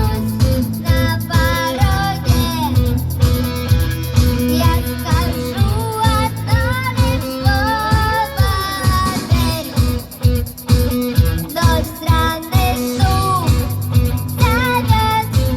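Rock song with a child singing the melody over guitar accompaniment and a steady drum beat.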